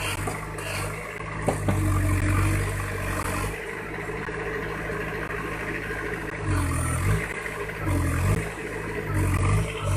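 Case 580 Super M backhoe loader's diesel engine running under load while the machine is worked to free itself from mud. It labours heavily at first, eases, then surges three times in the second half.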